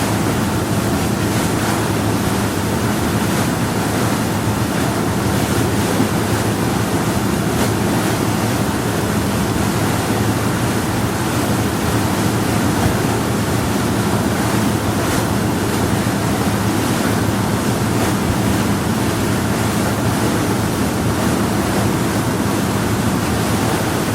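Power yacht under way at a steady speed on calm water: a constant rush of water along the hull over a low, even engine hum.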